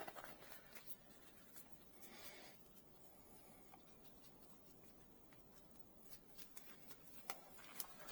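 Faint rustling and a few light clicks as gloves are pulled onto the hands, against near silence.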